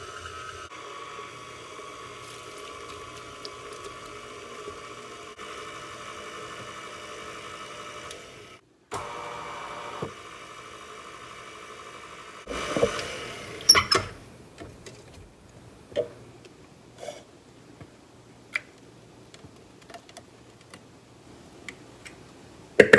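Electric kitchen mixer motor running steadily as it blends ice cream and lemonade into a frosted lemonade, cutting out briefly about nine seconds in, then restarting and stopping a few seconds later. Afterwards, scattered clicks and knocks of the container and utensils being handled.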